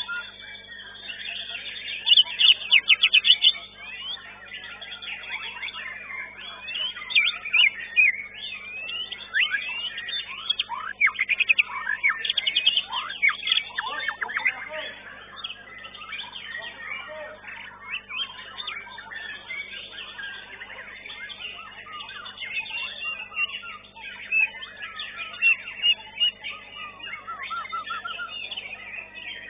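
White-rumped shama (murai batu) singing continuously in a varied stream of whistles, sweeping notes and fast trills, with a loud burst of rapid repeated notes about two seconds in.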